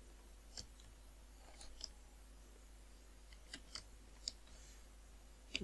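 Faint computer keyboard keystrokes: a few scattered single clicks spread over several seconds, over near-silent room tone.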